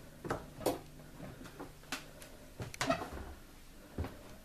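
Footsteps and creaks on wooden floorboards in a small room: about half a dozen irregular knocks, with no music or speech.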